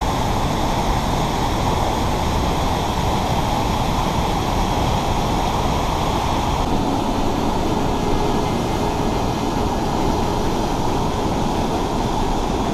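Mountain creek rushing steadily through a narrow rock gorge, a constant white-water roar.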